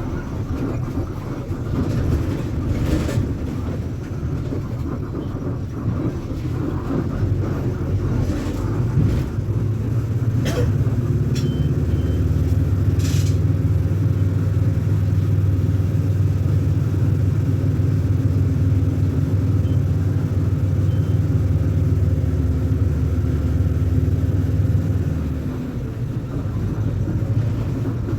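Diesel engine of a VolksBus 9.160 OD Euro V bus running. It is rough and uneven at first with a few sharp clicks, settles into a steady, even drone about ten seconds in, and eases off near the end.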